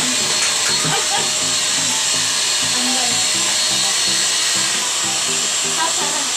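Canister vacuum cleaner motor running steadily, a constant rushing hiss with a high whine, with background music playing along.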